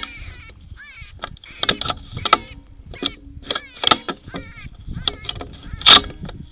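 Geese honking, with shotgun shots cracking among the calls: a few shots in the first four seconds, and the loudest one about six seconds in.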